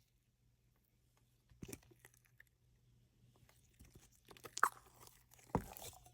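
Hands pressing and squishing a slime, making sticky clicks and small pops. A few come in the first half and they grow denser and louder in the last two seconds.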